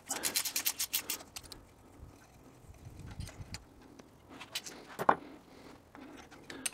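Socket ratchet clicking rapidly for about a second and a half as it turns a spark plug out of the engine's cylinder head through a long extension and spark plug socket, followed by a few faint scattered clicks and one sharper knock about five seconds in.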